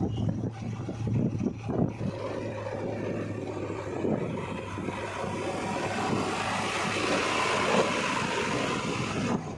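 Heavy diesel machinery engine running with a steady low hum, a few knocks in the first two seconds. The engine noise grows louder from about six seconds in, then drops off abruptly just before the end.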